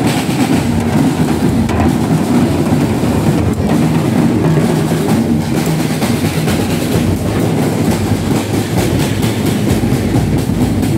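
A band of many snare drums and bass drums drumming together while walking in procession: a dense, steady, unbroken beat.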